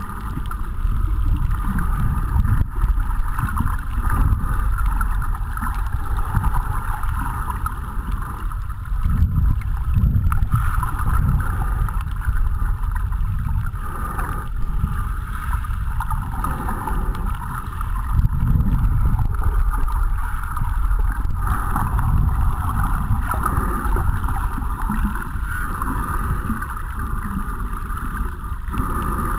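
Muffled underwater noise from a camera in its waterproof housing moving through the water: a steady low rumble with a band of hiss, swelling and easing every few seconds.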